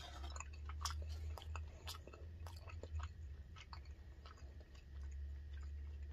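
A person chewing a mouthful of soft fermented herring, with faint wet mouth clicks that come more often in the first half. A steady low hum runs underneath.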